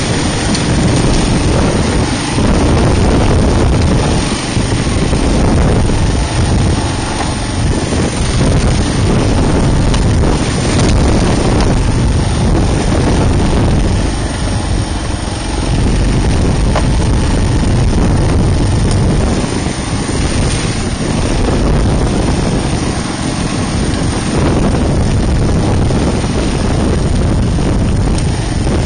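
Kawasaki KLR650's single-cylinder four-stroke engine running while the motorcycle is ridden, with wind buffeting the microphone.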